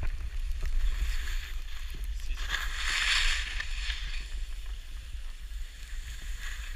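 Skis hissing through fresh powder snow, with a louder swish about two and a half seconds in, over a steady low rumble on the pole-mounted camera.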